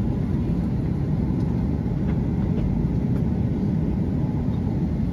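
Steady low rumble of an airliner's engines and airflow, heard from inside the cabin.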